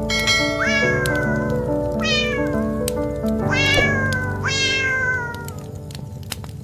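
A cat meowing four times, each meow sliding down in pitch, over background music.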